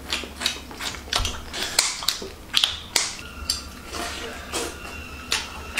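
Close-up eating sounds: fried spiny lobster shell crackling and cracking as it is bitten and sucked, an irregular run of sharp clicks, several a second.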